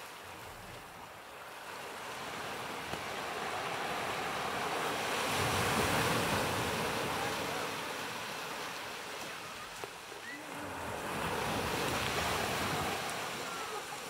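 Ocean surf: small waves breaking and washing up a sandy beach, swelling to a peak about six seconds in and again near twelve seconds.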